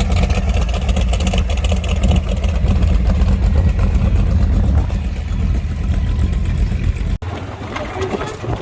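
Golf cart driving along, a loud steady rumble of its running and rolling with no letup, dropping somewhat after a brief break about seven seconds in.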